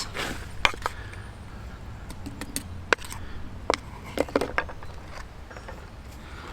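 A few sharp clicks and light knocks spaced a second or so apart, from hot stones being handled and dusted with flour for baking bread dough, over a low steady rumble.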